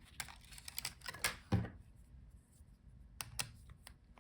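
Light, scattered clicks of the tiny antenna wire connectors being pried and snapped off a laptop's Wi-Fi card, about seven in all, the sharpest about a second and a half in.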